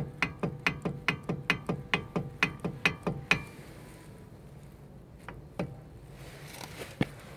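Lada Vesta brake caliper knocking, a sharp metallic knock with a short ring about twice a second, stopping about three and a half seconds in; two single knocks follow later. The knock is the caliper fault being shown.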